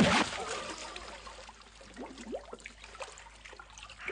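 Water splashing as a man thrashes in a lake, loudest right at the start and dying away to a softer sloshing.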